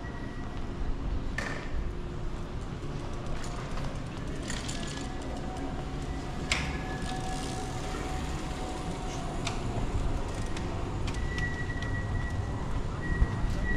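City street ambience: a steady low rumble of traffic with scattered clicks and knocks. Near the end a tram draws near, its wheels giving a thin, high, steady squeal.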